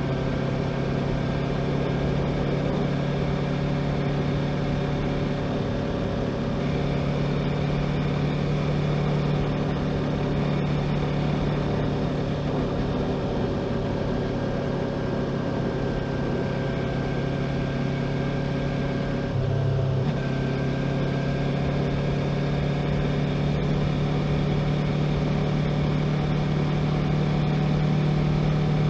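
Yamaha YZF-R3 321 cc parallel-twin engine running steadily while riding at a constant pace. About two-thirds of the way through, the note dips briefly and then picks up again.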